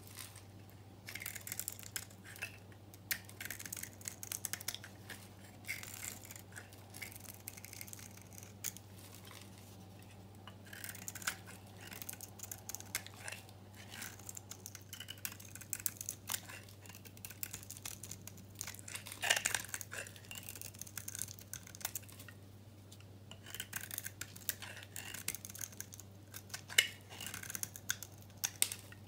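A knife blade shaving a dry, hard bar of soap, thin curls breaking off with crisp crackles in quick, irregular runs.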